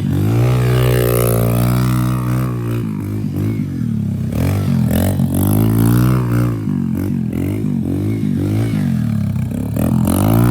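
Dirt bike engine revving up and down repeatedly as it is ridden hard, the pitch rising and falling with each throttle opening and easing, several quick swings in the middle.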